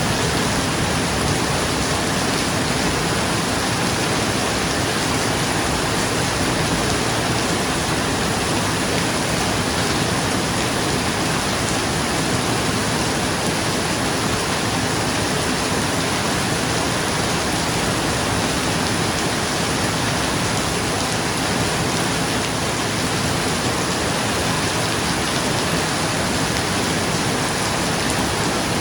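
Steady rain falling on a roof: an even, unbroken hiss of drops.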